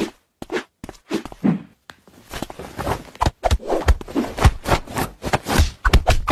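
Quick irregular slaps and rustles as a hand and a cat's paws bat at each other on a bed cover, sparse at first and coming thick and fast after about two seconds.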